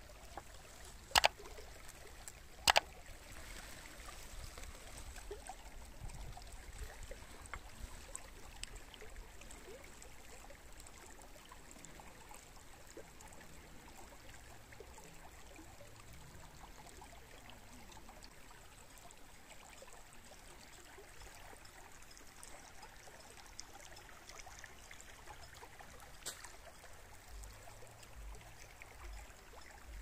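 A small shallow stream trickling steadily. Two sharp, loud clicks come about a second in and again a second and a half later, with a fainter one near the end.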